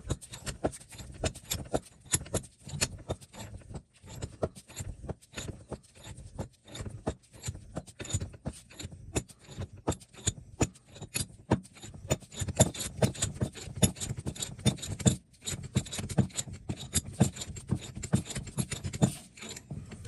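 Wilton bench vise being handled and worked: a run of irregular metal clinks, rattles and scrapes, with a short pause about four seconds in and another about fifteen seconds in.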